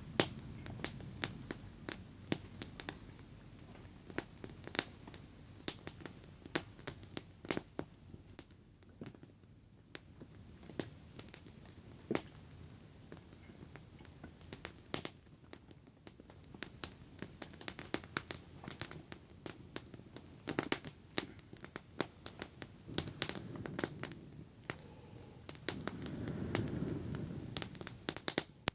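Small wood campfire crackling, with irregular sharp snaps that come thicker toward the end.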